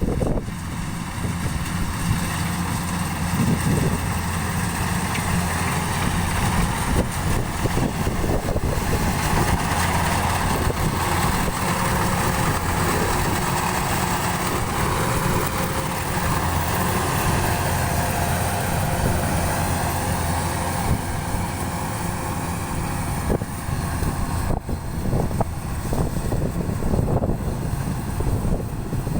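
Diesel engines of Kubota rice combine harvesters running steadily while they cut and thresh the standing rice, a continuous mechanical hum.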